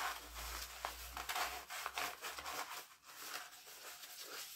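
Rustling and rubbing of a paper scroll being handled, a steady run of short scratchy sounds, with a low rumble of handling in the first half.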